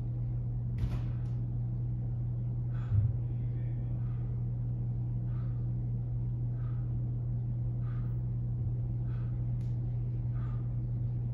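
A steady low room hum, with faint short sounds about once a second during dumbbell curl reps. A single thump comes about three seconds in.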